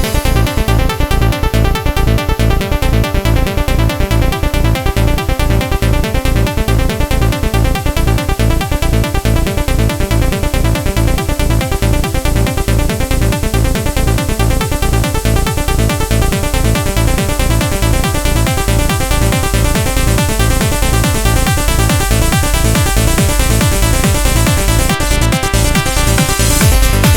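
Uplifting trance music with a steady four-on-the-floor kick and layered synths, loud throughout, with a rising sweep building near the end.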